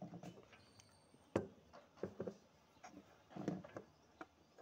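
Small knocks and clicks of hand tools, a plastic funnel and shotgun shells being handled on a wooden tabletop while a 12-bore shell is hand-reloaded. A single sharp knock about a second and a half in is the loudest.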